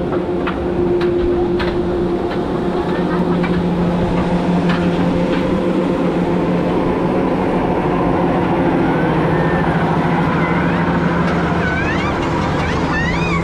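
Suspended roller coaster climbing its lift hill: a steady mechanical hum from the lift drive, with scattered clicks in the first few seconds.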